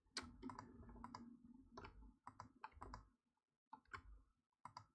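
Faint, irregular clicking from a computer mouse and keyboard.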